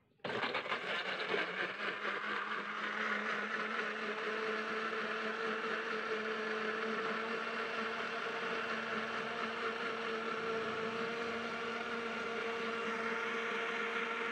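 Electric countertop blender switched on just after the start and running steadily at one speed, its blades puréeing tomatoes and shallots with a little water.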